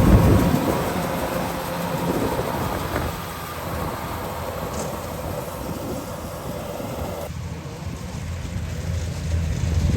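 Rice combine harvester's engine running steadily, with wind rumbling on the microphone. It is louder in the first couple of seconds, drops back, and grows louder again near the end.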